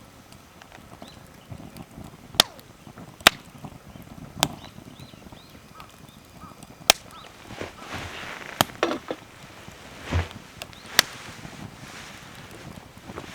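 Wood fire crackling: sharp, irregular pops from burning firewood, several seconds apart, over faint hiss and rustle.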